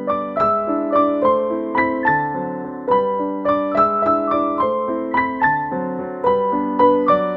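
Background piano music: a gentle melody of single notes struck at an even pace, about two or three a second, each one fading before the next.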